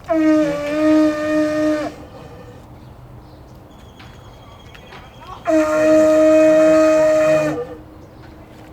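Pū, a Hawaiian conch shell trumpet, blown in two long held blasts of about two seconds each, the second starting about five and a half seconds in. It is sounded to call on the directions before the canoe blessing.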